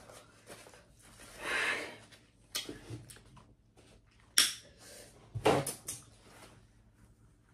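Close-miked eating of seafood boil food: a soft wet mouth sound about a second and a half in, then a few sharp crunches and clicks around the middle.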